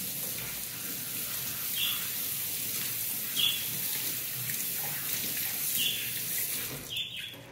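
Water running steadily from a kitchen tap, shut off near the end. A few short high chirps sound over it every couple of seconds.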